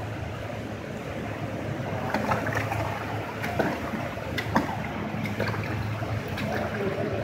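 Seafood washing machine running: water churning and bubbling in its stainless-steel tank over a steady low motor hum, with scattered clicks and knocks from about two seconds in.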